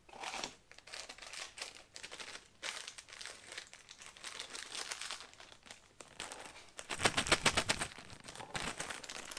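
Packaging being handled and opened, crinkling and rustling in irregular bursts, with a louder run of rapid crackles lasting about a second near the end.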